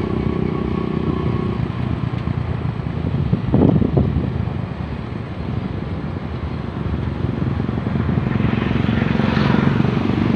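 Motor vehicle engines running steadily at low speed, the car's own and the motorcycles and tricycles just ahead, with road and wind noise and a brief louder swell about four seconds in.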